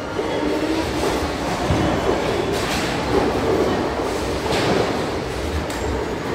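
Bowling alley hall noise: bowling balls rolling on the lanes and pinsetter machinery running, a steady rumble, with a couple of sharper crashes of pins about two and a half and four and a half seconds in.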